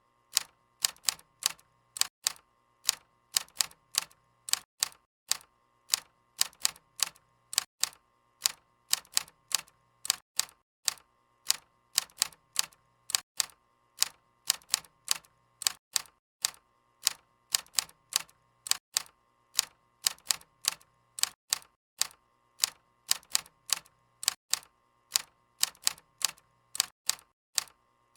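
Typewriter keys struck one after another, sharp clacks at a steady typing pace of about three a second, slightly uneven.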